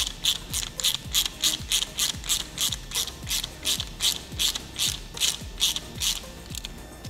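Ratcheting screwdriver clicking as it is swung back and forth to run a nut down onto a stainless steel bracket, a quick run of ratchet clicks on each back-swing at about three a second. The clicking stops shortly before the end.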